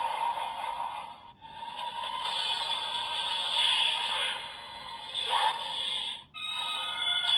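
DX Bitter Gavv toy transformation belt playing its electronic sound effects and music through its small built-in speaker, a thin, tinny sound that cuts out briefly twice and ends in held electronic notes.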